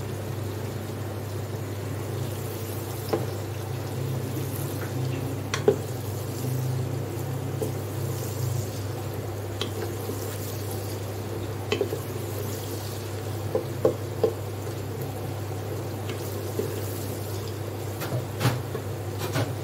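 Sliced onions frying in oil in an electric pressure cooker's inner pot, stirred with a wooden spoon that knocks and scrapes against the pot every few seconds. A steady low hum runs underneath.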